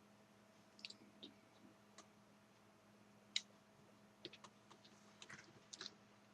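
Faint, scattered small clicks and taps of a screwdriver and tiny screws against a laptop's plastic case while screws are taken out of the underside, the sharpest click about halfway through and a cluster near the end, over a faint steady hum.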